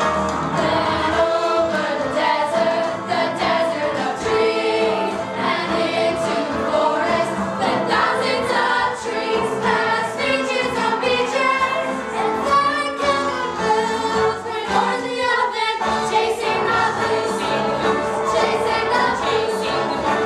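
Children's choir singing a musical-theatre song with instrumental accompaniment.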